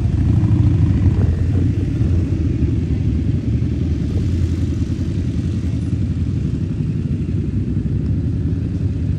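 Steady low rumble with a fluttering texture.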